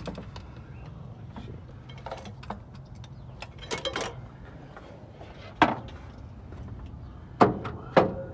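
Old Edelbrock 1406 carburetor being worked free of its linkage and lifted off the intake manifold: light metallic rattles and clicks, with a sharp knock a little past the middle and two more near the end.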